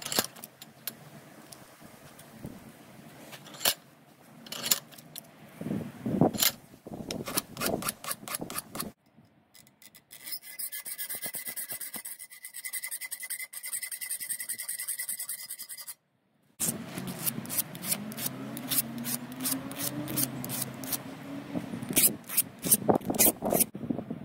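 A hand file rasping across a piece of spoon metal clamped in a vise, in uneven strokes. After a short pause, a hacksaw cuts through the spoon metal in quicker, regular strokes.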